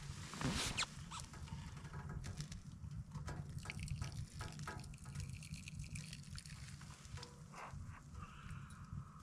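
Hot water poured from a small metal kettle through an improvised bandage-wrapped coffee filter into a mug, trickling and dripping, with light knocks of handling; a sip near the end.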